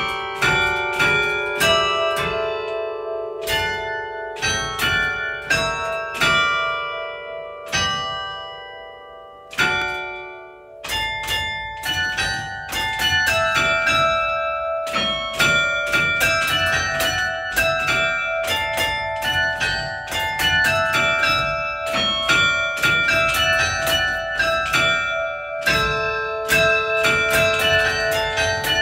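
Church tower bells played as a tune from a carillon's baton keyboard: single struck notes with long ringing tails overlapping one another. The tune dies down briefly about ten seconds in, then picks up again.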